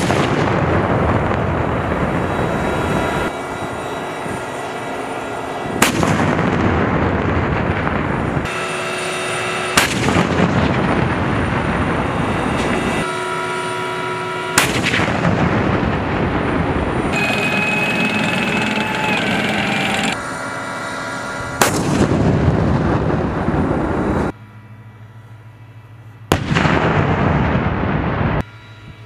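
M1 Abrams tank 120 mm main guns firing: about six single heavy shots several seconds apart, each trailing off slowly, with a steady engine whine between shots.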